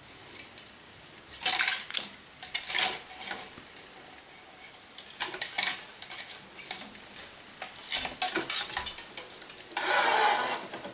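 Tennis racquet string being threaded and drawn through the frame's grommets on a stringing machine: a series of short swishes, rattles and clinks, with a longer one about ten seconds in.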